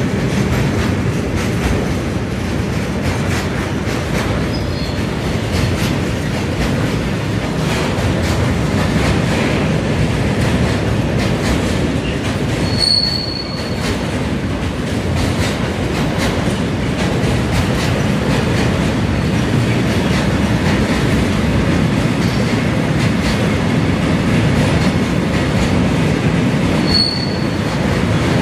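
A freight train of tank wagons rolling past: a steady rumble of wheels on rail with clickety-clack over the joints. A short, high wheel squeal comes about halfway through and again near the end.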